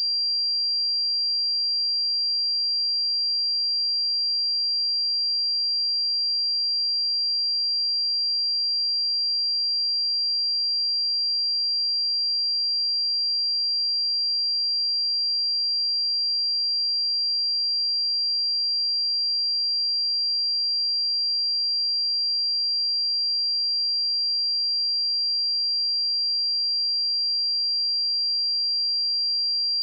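A steady, high-pitched 4744 Hz sine-wave test tone, a single pure pitch held at an even level without change.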